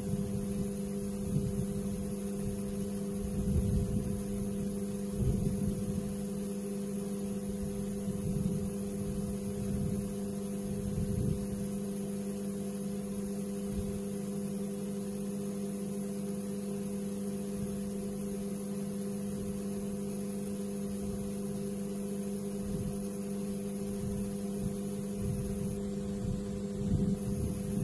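Steady electrical hum with several fixed tones, under irregular low rumbles that come and go, strongest in the first half and again near the end.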